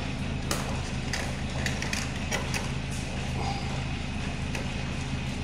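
Scattered light clicks and rattles of wires and plastic connectors being handled at an air conditioner indoor unit's control board, over a steady low hum.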